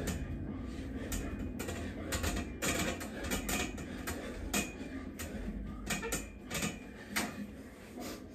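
Irregular clicks and knocks from a steel dip station as a person does dips on it, over a steady low hum.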